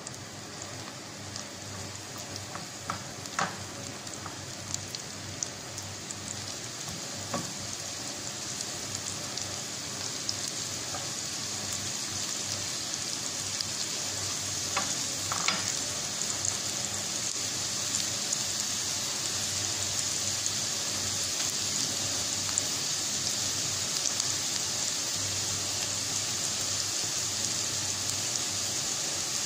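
Chopped red onion sizzling in hot oil in a frying pan, the sizzle growing steadily louder. A plastic spatula stirring it gives a few short taps and scrapes against the pan.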